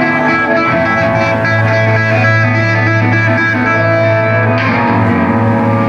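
Live indie rock band playing: electric guitars ringing out chords over a steady bass note, without vocals.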